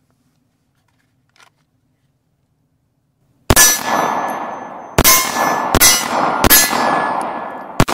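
Handgun fired five times, the first shot about three and a half seconds in and the rest roughly a second apart, with steel plate targets ringing after the shots.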